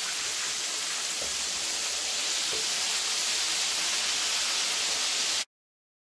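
Chicken pieces frying in a shallow pan of hot oil: a steady sizzle while they are turned with tongs. It cuts off suddenly about five seconds in.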